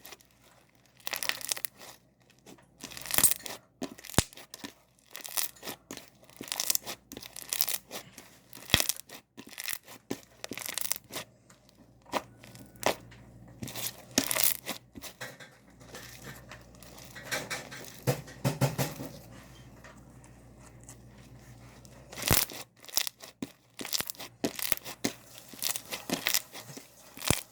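Slime being squeezed, stretched and poked by hand, making a run of irregular pops and clicks.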